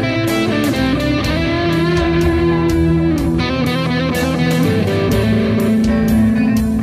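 Guitar-led music with a steady drumbeat.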